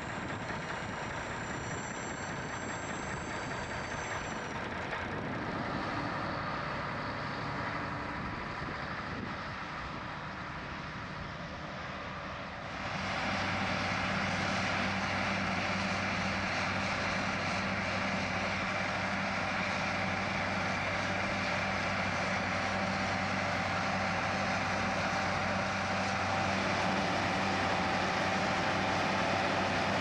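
Diesel engines of a Versatile tractor pulling a potato harvester and a potato truck running alongside, a steady mechanical drone. A little under halfway through it turns louder and steadier.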